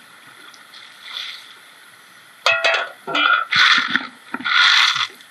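Faint steady river hiss, then about halfway in a metal shovel strikes stone with a short ringing clang, followed by two loud gritty scrapes as it digs into gravel and stones in the riverbed.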